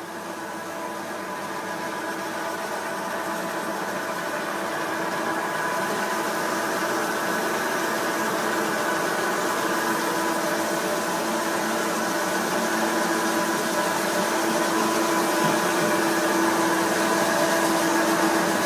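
Floor grinding machine wet-grinding a marble floor with diamond pads: a steady motor hum with a grinding hiss over the stone, growing gradually louder.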